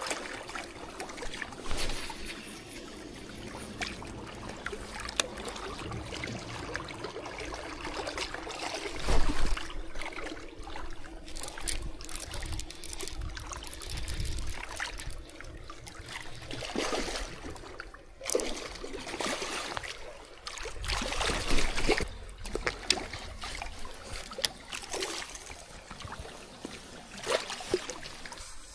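Lake water trickling and splashing at the water's edge, with scattered sharp clicks and a few louder splashing surges, and a deep thump about nine seconds in.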